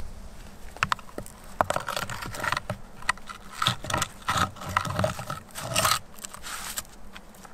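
A run of short, irregular scraping strokes, about a dozen, that die away about a second before the end.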